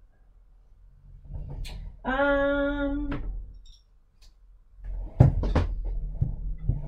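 Handling noise as things are rummaged through and picked up: rustling, then several sharp knocks and clatter near the end. In the middle a single steady hummed note is held for about a second.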